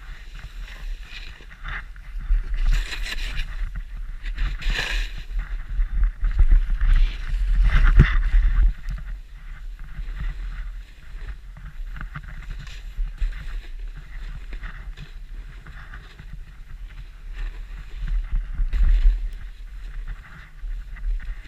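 Wind buffeting a moving camera's microphone as a steady low rumble, with the hiss of sliding through deep powder snow swelling several times during the descent.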